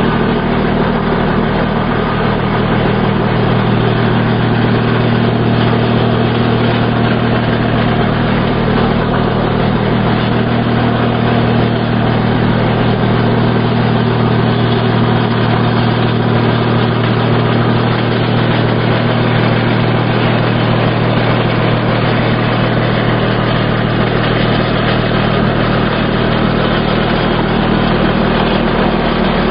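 Stihl HS45 handheld gas hedge trimmer's two-stroke engine running steadily as its blades cut through the shrub.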